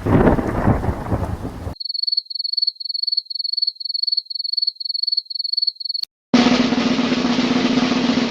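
A sequence of stock sound effects. Thunder with rain ends about two seconds in, then a high electronic beep repeats about twice a second for roughly four seconds. After a click and a brief gap, a snare drum roll begins.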